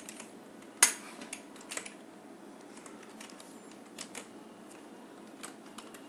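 Scattered sharp clicks of computer input during a copy and paste, the loudest about a second in and a few fainter ones later, over faint steady hiss.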